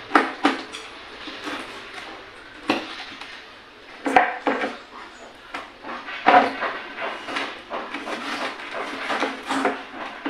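Kitchen knife clinking and scraping against a plate while slits are cut into raw chicken: irregular sharp taps and knocks, several louder ones about 4 and 6 seconds in.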